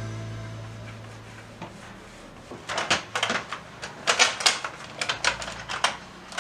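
Background music dying away, then irregular runs of sharp clicks and knocks from kitchen work, like utensils or a knife tapping on a wooden board.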